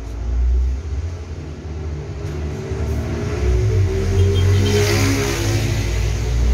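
An engine running, its pitch drifting slowly upward and its level growing toward the end.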